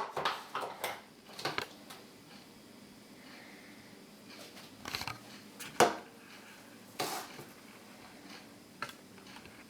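Kitchen utensils clinking and knocking against a mixing bowl and dishes: a quick cluster of knocks at first, then single sharp knocks every second or so.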